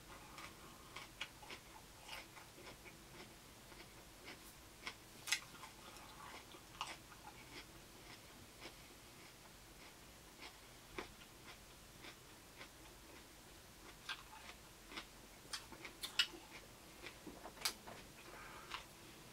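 A person chewing raw vegetables: faint, irregular crunches and wet mouth clicks, with a few sharper clicks scattered through.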